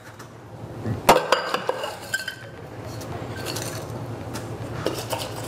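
Crushed ice tipped from a metal shaker tin into a cocktail glass. There is a sharp clink about a second in and a few quick clinks after it, then a steady rustle of ice sliding in with scattered small clinks.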